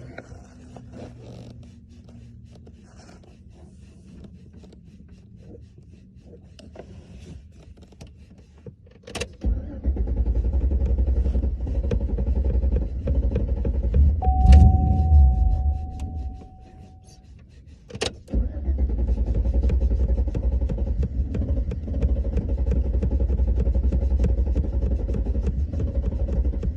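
Faint key jingles and clicks, then, after a sharp click, a truck engine cranking on the starter for about seven seconds without catching, with a steady beep over part of it. After a short pause and another click the cranking starts again and goes on to the end, the engine still not starting.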